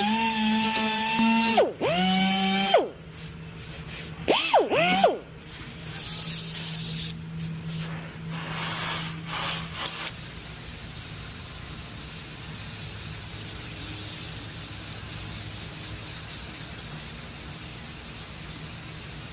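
Power drill run in several short bursts, its whine rising as it spins up and dropping as it stops. After about five seconds only a low steady hum remains.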